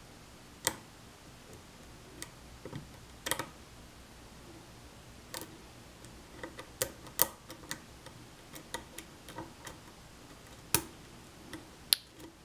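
Thin metal hook pick clicking and tapping against the pin stacks inside a challenge lock cylinder held under tension: a scattering of irregular sharp clicks, a few louder than the rest.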